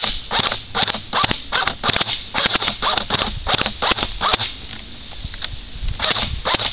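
Airsoft rifle firing a quick string of single shots, about two to three a second, with a pause of a second or so past the middle before the shots resume.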